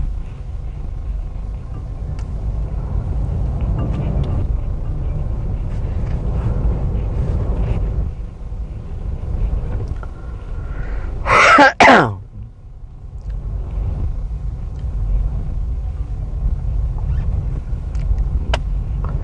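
Steady low rumble of a car on the move, heard from inside the cabin. About eleven seconds in, a person sneezes once, loudly.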